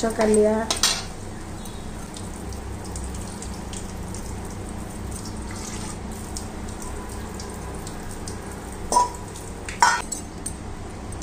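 Masala gravy for a fish curry coming to the boil in a kadai, a steady sizzling, bubbling hiss. Near the end come two sharp metal clinks of steel utensils.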